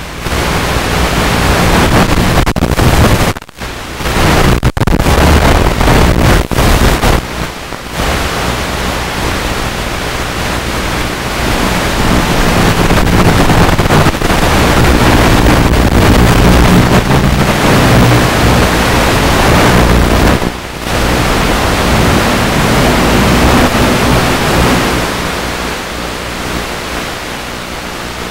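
Loud steady static hiss with a low buzz underneath, cutting out briefly a few times: the audio channel of an analog FPV video link, from a Blade Nano QX FPV quadcopter.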